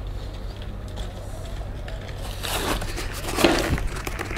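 A steady low hum, with people's voices over it from about two seconds in, growing louder near the end.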